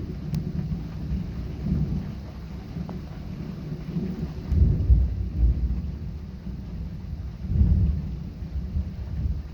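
Thunder rumbling in a thunderstorm, swelling louder twice, about halfway through and again near the end, over steady rain.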